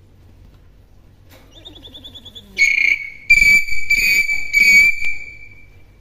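Hill myna giving a loud, high whistle of steady pitch, broken into about four notes, after a few faint quick chirps.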